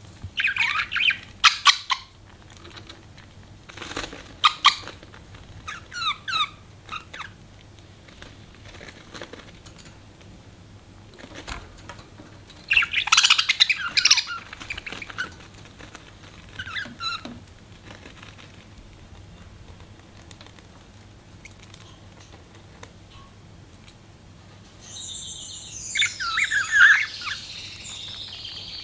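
Pet budgerigars chirping and warbling in irregular bursts of quick, high chirps, with quieter gaps between. The chattering grows denser and more continuous near the end.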